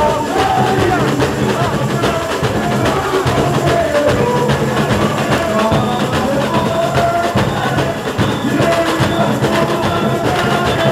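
A samba school bateria of dozens of drummers playing a dense, steady samba rhythm on surdos, snare drums and other percussion, with voices singing a samba-enredo over it.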